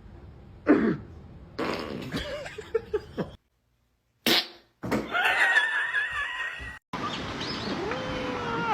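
Fart sound effects played as a string of short clips, cut abruptly one into the next, with a dead gap about three and a half seconds in.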